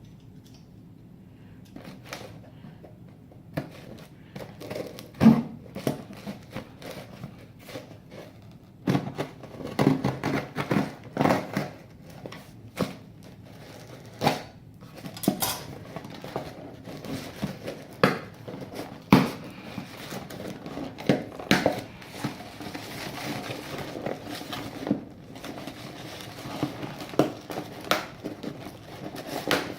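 A parcel being unboxed by hand: packaging crinkling, rustling and tearing, with scattered clicks and knocks as the box and its contents are handled.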